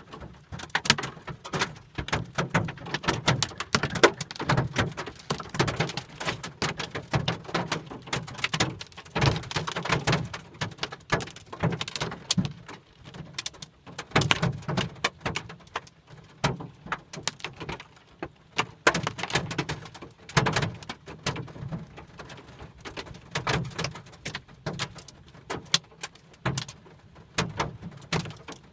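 Hailstones hitting the body and windshield of a 1991 Lincoln Town Car, heard from inside the cabin: a dense, irregular clatter of sharp knocks, some much louder than others.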